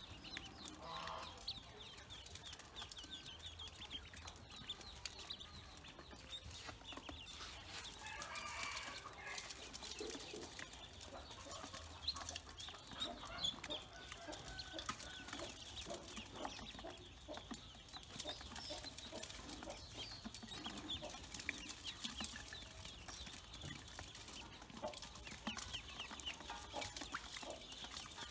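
A flock of Pekin ducklings peeping constantly, many short high calls overlapping, while they peck at grain in a metal bowl, with light clicks of bills against the bowl.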